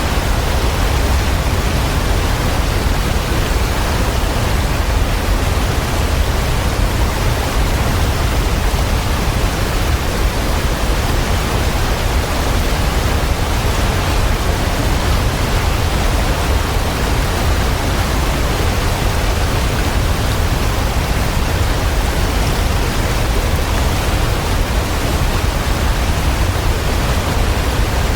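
Waterfall: water falling and splashing in a steady, dense rush, heaviest in the low end, with no change throughout.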